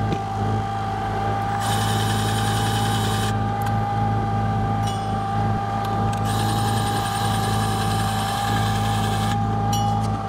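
Cordless grease gun's motor running twice, about a second and a half and then about three seconds, with a high whirring that has a fine rapid pulse, as it pumps grease into a fitting on the Toyota forklift. Under it the forklift's engine idles with a steady hum.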